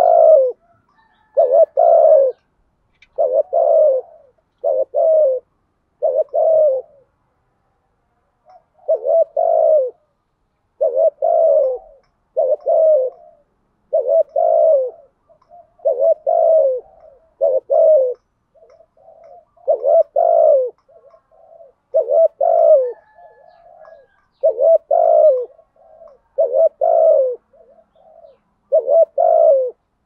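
Decoy spotted dove giving the rapid 'thúc gù' coo used to stir up and lure wild doves: short low coo notes repeating about once a second, with a pause of about two seconds early on and softer notes between the louder ones later.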